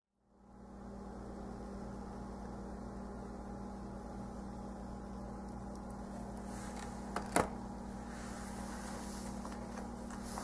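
Steady low hum of a running motor or appliance. About seven seconds in come a brief rustle and two quick clicks of something being handled.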